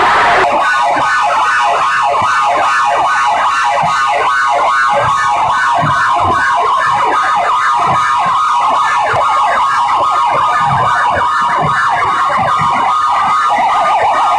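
Very loud electronic track blasting from stacked horn loudspeakers: a shrill, wailing siren-like sound with a pulsing beat about twice a second, heavy in the upper mids and thin in the bass.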